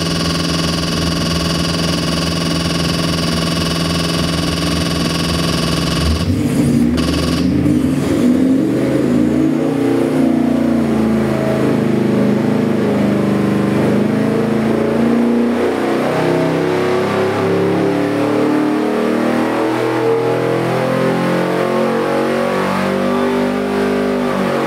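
Ford 408 Cleveland stroker V8, built on a 351 Cleveland block and running on an engine dynamometer, idles steadily for about six seconds. It is then opened up for a dyno RPM sweep, its pitch climbing steadily from about 3,000 rpm to about 6,000 rpm at full power by the end.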